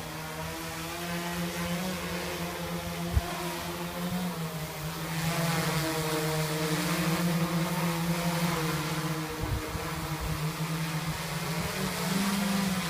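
Large homemade quadcopter's electric motors and propellers running with a steady hum whose pitch wavers up and down as the throttle changes, getting louder from about five seconds in. A single short knock about three seconds in.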